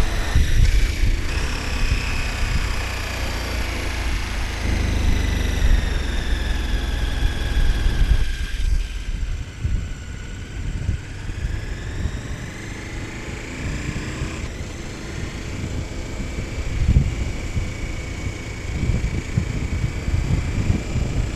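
KTM 1290 Super Adventure S's V-twin engine under way, with wind on the microphone. The engine note falls, the throttle closes about eight seconds in, then the revs climb again with a gear change partway through.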